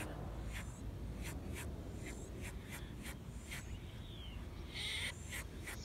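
Songbirds calling in the tree canopy: a run of short, sharp chip notes, two or three a second, with a brief falling note about four seconds in and a louder, harsher call about five seconds in, over a low steady rumble.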